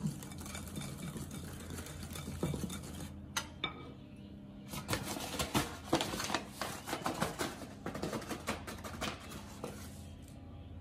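Kitchen handling sounds: a wire whisk stirring batter in a glass mixing bowl with light ticks against the glass. Then, from about five seconds in, a dense run of crinkling and clicks as a paper flour bag is handled and a metal measuring cup scoops from it.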